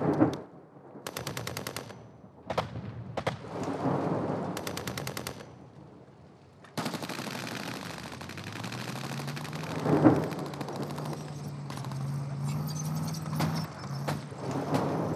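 Bursts of rapid automatic gunfire with single shots in between, then a steady rumble with a low engine-like drone, a heavy bang about ten seconds in, and scattered shots.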